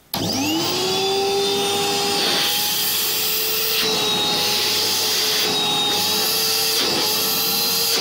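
Old Ural vacuum cleaner, refitted with a replacement motor from a modern vacuum cleaner, switched on: the motor spins up with a quickly rising whine, then runs steadily with a high whine over a strong rush of air.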